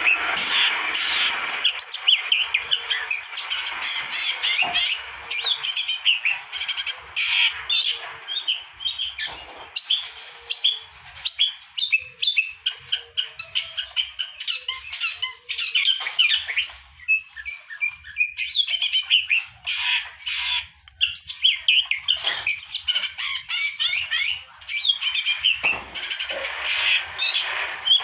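Long-tailed shrike singing continuously: a fast, dense run of chirping notes, broken by a few short pauses.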